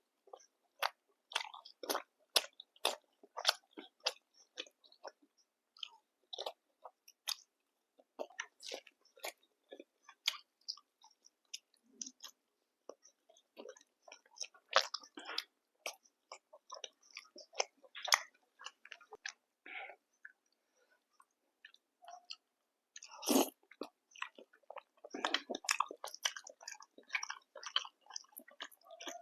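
Close-miked eating sounds: wet chewing and biting with short, crisp crackles, coming in irregular runs with pauses between mouthfuls and a busier stretch near the end.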